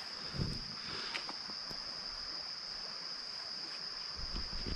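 Insects trilling in one steady, unbroken high-pitched tone, with a few faint low knocks about half a second in and again near the end.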